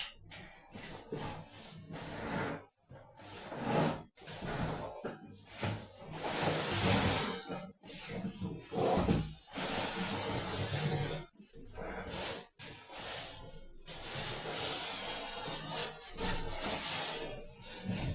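Packaging on a new fridge rustling and tearing in irregular stretches with short pauses as it is unpacked, over background music.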